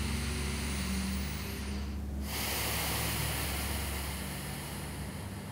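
A person breathing deeply: the end of a slow breath in, a brief pause about two seconds in, then a longer breath out that fades away. A faint steady low hum runs underneath.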